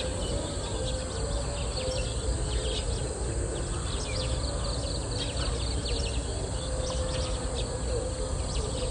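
Outdoor ambience: many small birds chirping in quick short calls over a steady low background noise.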